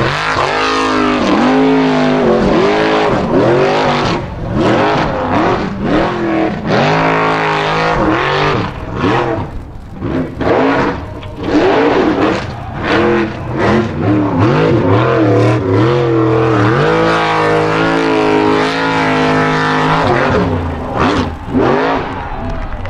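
Off-road hill-climb buggy engines revving hard in repeated bursts as the cars claw up loose sand slopes. The pitch swoops up and down over and over, with brief drops where the driver lifts off the throttle.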